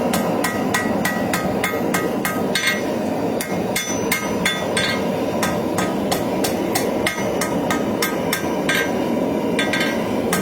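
Hand hammer striking a hot steel knife blade on an anvil, light blows at about three a second that ring on each strike, planishing out the deeper hammer marks to smooth the blade. The rhythm loosens about two and a half seconds in, with a few harder, longer-ringing blows.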